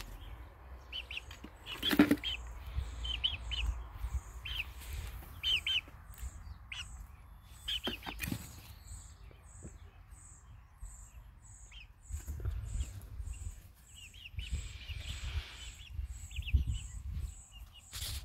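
Young chickens peeping in short, falling chirps, scattered through. From about halfway a steady series of high pips runs at about three a second, with a low rumble and a couple of sharp knocks underneath.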